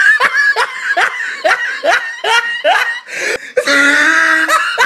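Hysterical high-pitched laughter: a run of short rising squeaky gasps, about two or three a second, with a long held squeal near the end.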